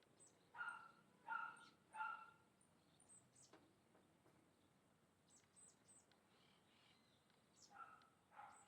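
Faint animal calls: three short two-toned calls, about two-thirds of a second apart, in the first two seconds, and two more near the end, with thin, very high chirps scattered between them.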